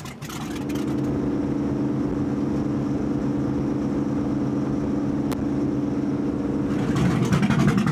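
Motorboat engine running at a steady speed, an even drone with no change in pitch. Near the end it gets louder and rougher.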